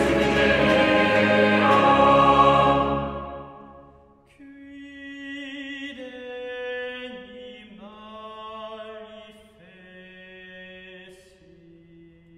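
Vocal ensemble singing a cappella: a loud full chord from the whole choir dies away about three to four seconds in, and then a few voices carry on softly with slow, held notes.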